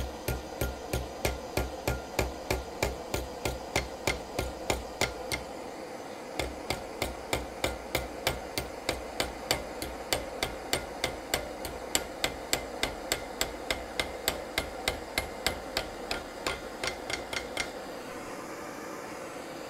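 Hand hammer striking a heated steel bar clamped in a bench vise, about three blows a second, rolling the bar around a 90-degree bend. The hammering pauses briefly about six seconds in and stops near the end, leaving a steady background noise.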